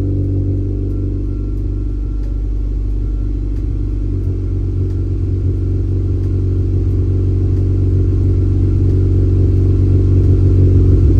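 Honda Civic Si 2.4-litre K24 four-cylinder breathing through an aftermarket downpipe and exhaust, idling steadily after a cold start. The low idle note holds even and grows slightly louder toward the end.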